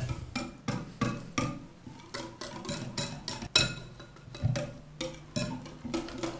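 Metal wire whisk beating a runny egg-and-yogurt batter in a glass bowl, its wires clicking against the glass about three times a second, with one louder clink a little past halfway.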